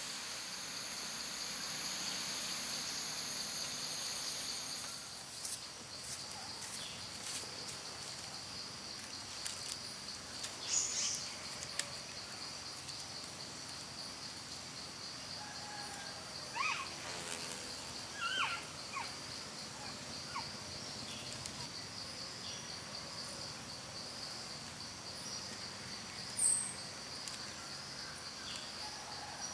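Insects trilling steadily at a high pitch, with a fuller, higher layer over the first five seconds. Scattered light clicks run through it, and a few short chirps come around the middle.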